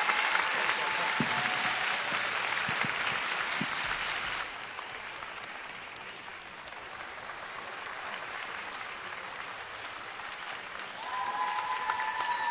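Arena audience applauding, louder for the first four seconds and then dying down to scattered clapping, with a voice calling out near the end.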